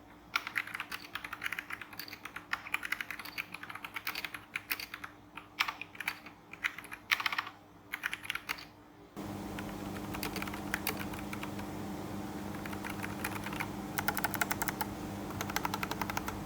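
Typing on a mechanical keyboard fitted with Kailh Brown tactile switches: a quick, irregular run of key clacks. About nine seconds in, a steady low hum comes up under the typing.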